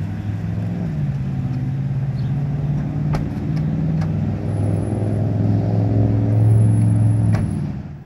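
A vehicle engine running steadily, its low hum shifting in pitch a few times, with a few sharp clicks about three and four seconds in and again near the end.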